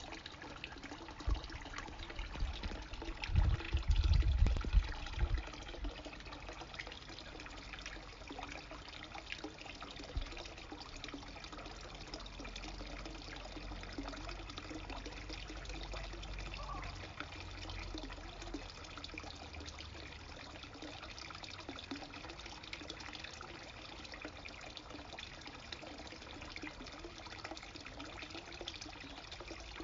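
Steady trickle and splash of water running from a pipe outlet into a garden pond. A cluster of low thumps comes about three to five seconds in, and a low rumble sits under the water from about twelve to eighteen seconds.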